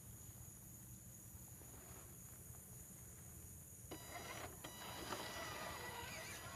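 Electric drive of an Axial SCX10 RC rock crawler whining faintly under throttle as it climbs a dirt pile: a steady high-pitched whine, several tones at once, that starts about four seconds in, over a low hum.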